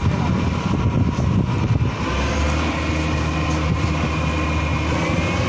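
Combine harvester running: a steady machine drone with a high whine over it, rough and uneven for the first two seconds, then settling into an even low hum.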